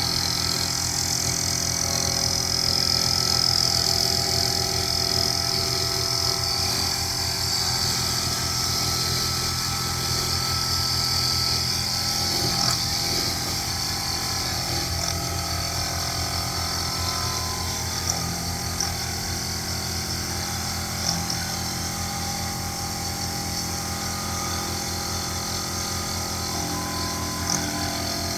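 Sherline milling machine running steadily with an end mill cutting a keyway slot, a high whine over a low motor hum, with a few small clicks later on.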